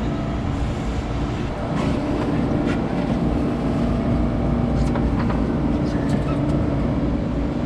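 Boat engine running with a steady low drone, and a few faint clicks over it.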